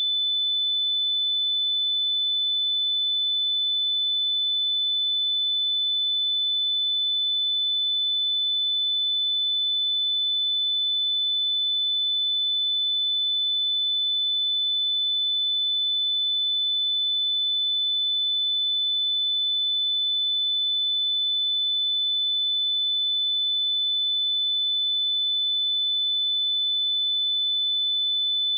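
A steady 3505 Hz sine-wave test tone: one pure, high-pitched, unchanging tone.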